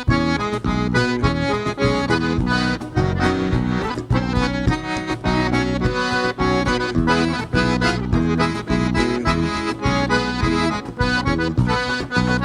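Live forró band music: an accordion leads an instrumental break over bass and a steady beat.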